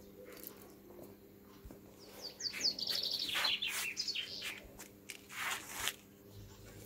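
A small songbird singing: a quick run of high, falling chirps about two seconds in, then a few more chirps near the end, over a faint steady low hum.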